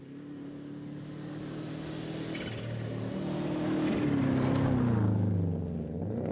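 Subaru Impreza rally car's flat-four engine at high revs on a gravel stage. It grows steadily louder as the car approaches, then drops in pitch as it passes close by about four to five seconds in, with gravel and tyre noise under it.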